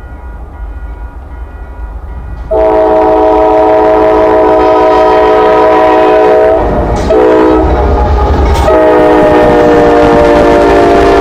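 Freight diesel locomotive's multi-chime air horn sounding the grade-crossing signal up close over the rumble of the train: a long blast, a short one, then another long one. The horn is faint at first, then jumps loud about two and a half seconds in.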